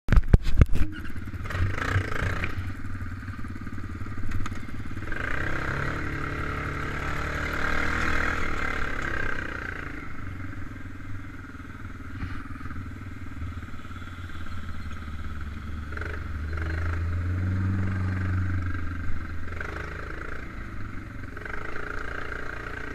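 A 4x4 ATV's 500 cc engine running as it rides over snow and slush, its note rising and falling with the throttle, with a cluster of knocks in the first second.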